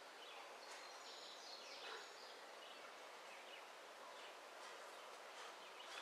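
Faint birdsong: several birds giving short high chirps, with a brief thin high phrase between about one and two seconds in, over a steady outdoor hiss.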